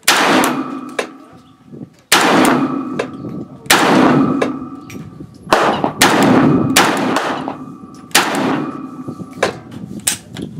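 A string of gunshots about a second or two apart, each with a long echoing tail and a ringing tone hanging after it.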